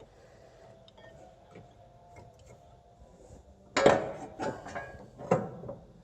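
Metal brake parts clanking and rattling as the rear brake caliper is handled: three loud knocks in the last two seconds, the first the loudest.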